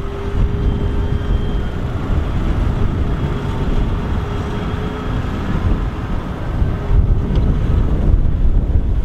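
Big Case IH tractor's diesel engine running hard as it tries to drag a loaded silage trailer out of deep mud. A steady whine rides over the engine and fades about two-thirds of the way through.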